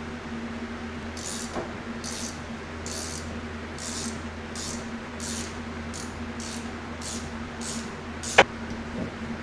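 Hand ratchet working in a steady series of short clicking strokes, about one and a half a second, then one sharp metallic click near the end.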